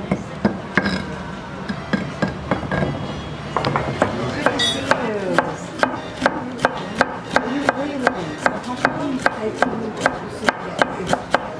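Stone pestle scraping and knocking against a volcanic-stone molcajete as salsa is ground. Then, from about four seconds in, a knife chops onion on a wooden cutting board in quick, even knocks, about three a second.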